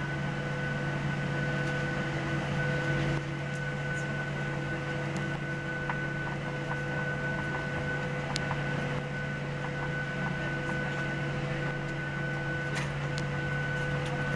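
Steady cabin noise of a Boeing 737-700 taxiing on its CFM56 engines at idle: a low hum with a steady whine at several pitches over the hiss of the cabin air, and a few faint clicks.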